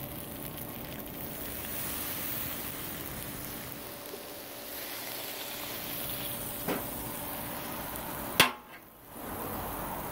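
Shrimp, vegetables and fried rice sizzling steadily on a hot Blackstone flat-top griddle. A sharp click comes about two-thirds through and a louder one near the end.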